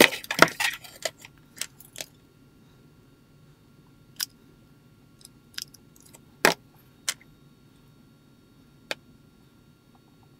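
Small plastic action-figure parts and a hot glue gun being handled on a wooden workbench: a flurry of clicks and knocks in the first two seconds, then single sharp clicks and taps every second or two.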